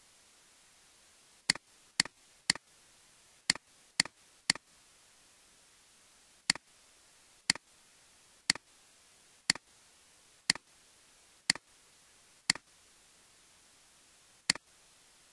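Computer mouse button clicking: about fourteen sharp clicks at uneven gaps of half a second to two seconds. Each click is followed by a softer second click, over a faint steady hiss.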